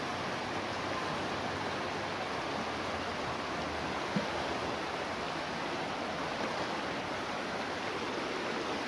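Steady rush of a fast-flowing, muddy river, with one short click about four seconds in.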